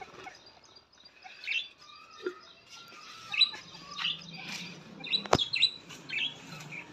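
Budgerigars chirping and twittering in short, scattered calls, with one sharp click a little over five seconds in.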